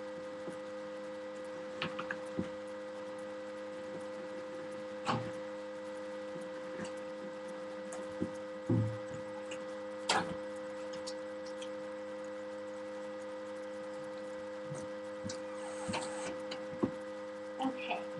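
A steady electrical hum of several fixed tones, with scattered light knocks and clicks of a sheet of cardboard being handled and cut on a newspaper-covered table.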